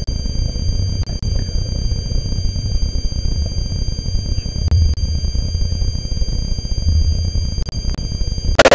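A steady high-pitched electronic whine over a constant low rumble, with one short, loud sharp sound near the end.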